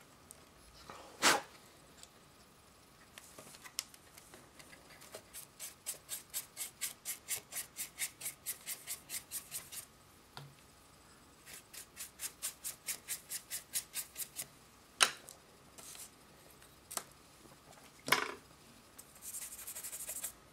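Paintbrush scrubbing weathering powder onto the plastic side of an HO-scale covered hopper, in quick even strokes about four a second in two runs. A few sharp knocks fall between them, and there is a short hiss near the end.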